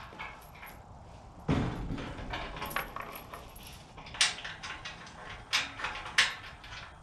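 A steel tube farm gate swung shut with a clank about a second and a half in, then a chain rattling and clinking several times as it is wrapped around the gate post and latched.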